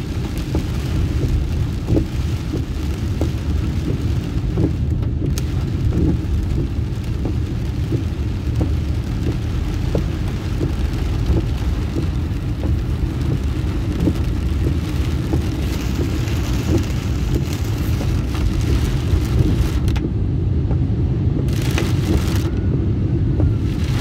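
Heavy rain hitting a moving car's roof and windshield, heard from inside the cabin as a dense spatter of drops over steady low road and engine noise. The higher rain hiss drops away briefly twice near the end.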